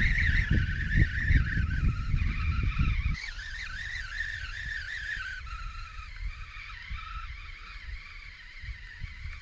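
Baitcasting reel being wound in to retrieve a lure, its gears giving a wavering high whine that rises and falls with the turns of the handle. A low rumble under it drops away about three seconds in.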